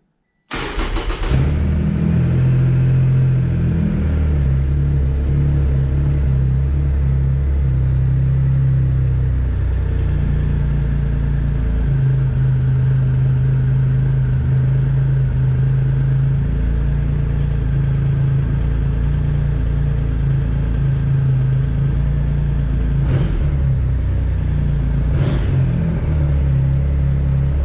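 Triumph Rocket III's 2294 cc inline three-cylinder engine started about half a second in, catching at once, then idling steadily after its throttle position sensor and idle stepper have been reset.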